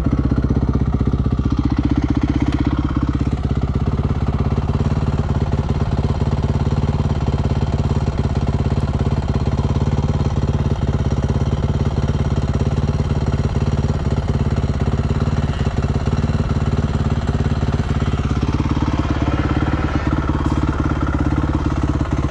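Dirt bike engine running steadily at low revs, close to the microphone.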